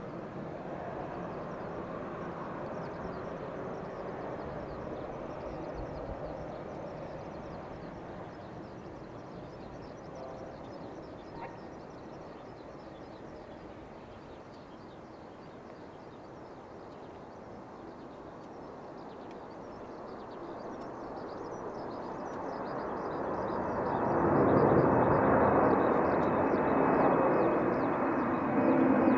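Boeing 747-400's four GE CF6-80C2 turbofan engines at takeoff power: a steady jet roar through the takeoff roll and climb-out, swelling loud from about twenty seconds in as the airliner passes overhead, with a high fan whine coming in near the end.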